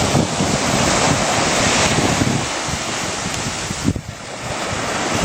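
Ocean surf washing in, with wind buffeting the microphone. The wash swells over the first two seconds and drops off briefly about four seconds in.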